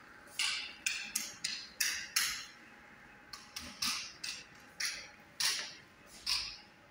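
Footsteps scuffing across a tiled floor in a bare room, about a dozen irregular steps in two runs with a short pause near the middle.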